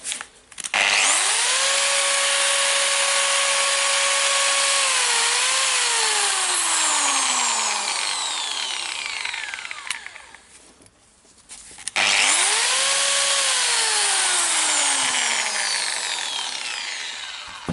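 Metabo WEA 14-125 Plus angle grinder switched on twice. Each time it spins up with a rising whine and then loses power and coasts down with a long falling whine. The first run holds steady for about four seconds and stutters before winding down; the second cuts out almost as soon as it reaches speed. The cut-outs come from a bad contact in the cord plug as the cord is moved.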